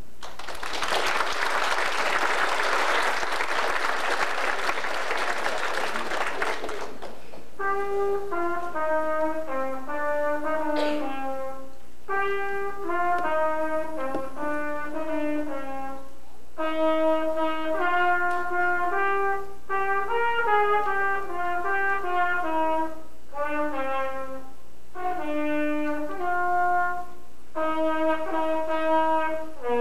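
A trumpet plays a melody in phrases of held notes, one line at a time, with short breaks between the phrases. A loud rushing noise covers about the first seven seconds, and the trumpet comes in after it.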